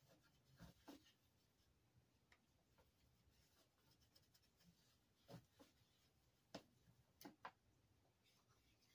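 Near silence, with a few faint light taps and soft rubbing as a small trinket box and its lid are handled on a desk.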